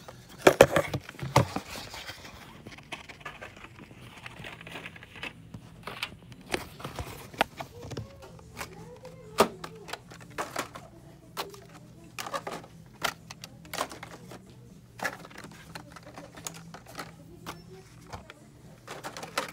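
Plastic blister-carded Hot Wheels packages clicking and rattling on metal store pegs as they are handled, in irregular sharp clicks, loudest about a second in, over a steady low hum.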